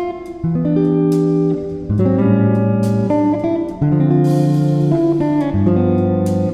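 Instrumental music: sustained chords over a bass line, changing about every second.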